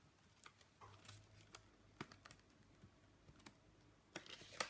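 Faint, scattered clicks and taps of fingers and nails handling a thick cardboard lift-the-flap book, with a few closer-spaced clicks near the end as a page is turned.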